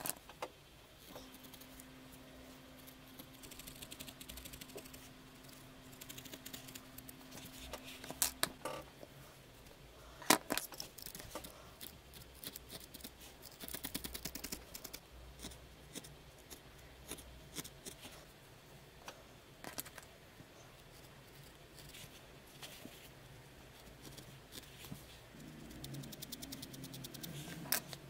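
Felting needles stabbing again and again into a ball of wool, a faint run of quick crunchy pokes and scratches with now and then a sharper click. A faint steady low hum runs underneath for the first eight seconds or so.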